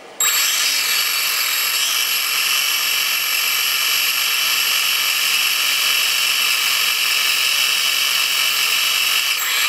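A toy quadcopter's small brushed motors start up suddenly and run steadily with their propellers turning, giving a high-pitched whine. One of its four motors is burnt out and does not turn.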